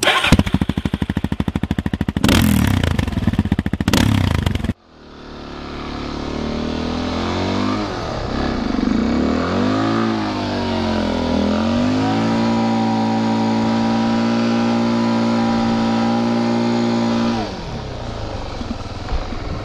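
Motorcycle engine: about four and a half seconds of loud, fast pulsing with two sharp blasts. Then, after a cut, the engine revs up and down and is held at high revs for about five seconds before dropping back near the end.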